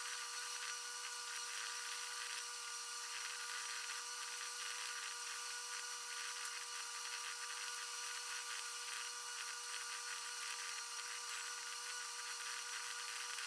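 Typing on a laptop keyboard: a soft, uneven run of key clicks over a steady high electrical whine.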